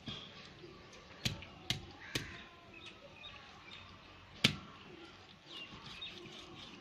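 Four sharp knocks, three close together in the first half and a louder single one about four and a half seconds in, with faint bird chirps.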